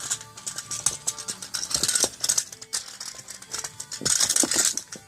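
Plastic toy tape measure rattling and clattering as a cockatoo shakes and knocks it about, a quick run of sharp clicks with a busier burst about four seconds in.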